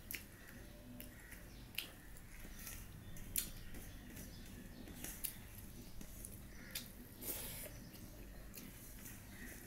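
Fingers mixing rice with egg curry on a steel plate: faint soft squishing with scattered light clicks and taps, the sharpest about three and a half seconds in.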